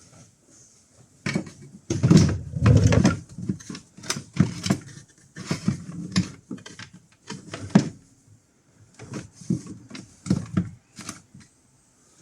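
Irregular knocks, clunks and rattles from hands-on work fitting parts on a small boat, in uneven clusters, loudest about two to three seconds in.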